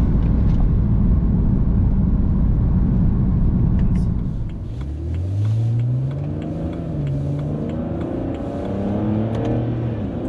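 BMW N52 straight-six through an aftermarket Active Autowerke muffler, heard from inside the cabin, accelerating hard in third gear. About four and a half seconds in the note drops away, then the engine pitch climbs again and settles into a steadier drone, with road noise underneath.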